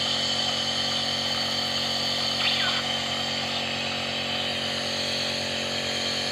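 Electric nebulizer compressor running with a steady buzzing hum during a cough treatment, with one brief short sound about two and a half seconds in.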